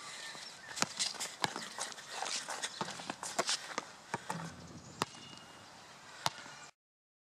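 Basketball play on an outdoor hard court: scattered, irregular knocks and thuds of the ball on the court and hoop over a light outdoor hiss. The sound cuts off abruptly near the end.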